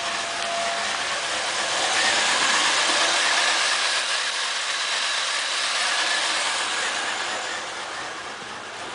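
2000 Pontiac Grand Am's V6 running at idle, heard at the exhaust pipe as a steady rushing exhaust noise that swells about two seconds in and eases near the end. The engine has a random multiple misfire and is running on only about five cylinders.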